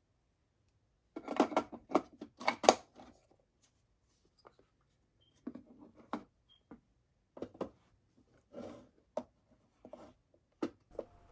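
Metal measuring tools and wooden instrument boxes being handled on a workbench: a quick run of clicks and knocks about a second in, then scattered lighter clicks and taps as the boxes and a hinged case are moved.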